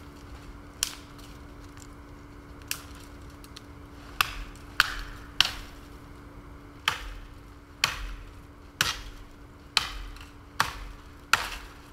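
Firewood being chopped: about eleven sharp wooden chops, sparse at first and then roughly one a second.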